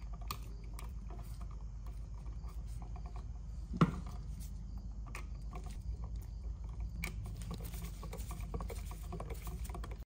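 Faint clicks, taps and scrapes of a screwdriver and stiff copper wires being worked at a GFCI outlet's terminal screws, with one sharper click about four seconds in, over a low steady hum.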